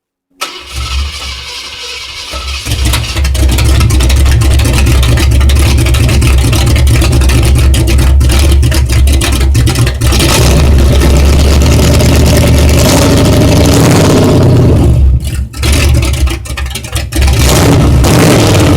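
1968 Ford Galaxie engine starting up and then running loud and fast on its first run after an engine repair. About fifteen seconds in the revs drop briefly, then pick back up.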